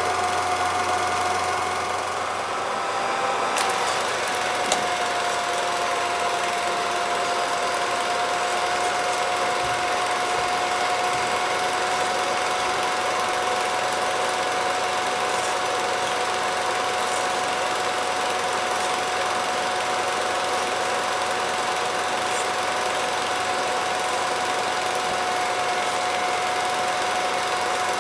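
Movie projector running with a steady mechanical whir and a constant tone. About three and a half seconds in there is a click and the tone drops slightly, then settles.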